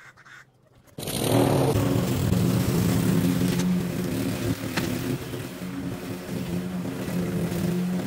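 Petrol rotary lawnmower engine running steadily as it cuts long grass. It starts abruptly about a second in.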